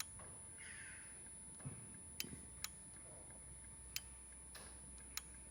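Quiet background with about five sharp, unevenly spaced clicks and a faint brief rustle or two.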